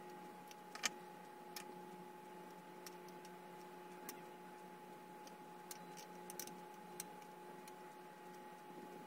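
Faint, scattered small clicks of needle-nose pliers and fingers working the Torx mounting pegs out of the side of a laptop hard drive, about one every second or so at irregular intervals.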